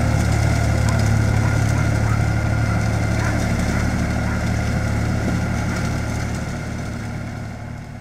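Deutz-Fahr Agroplus 315 tractor's diesel engine running steadily as it pulls a rotary hay rake, fading away over the last couple of seconds.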